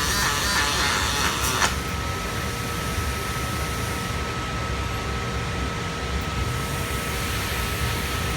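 Guitar music cuts off with a click about a second and a half in. It gives way to steady industrial machine noise from a robotic welding cell, with one constant high-pitched whine.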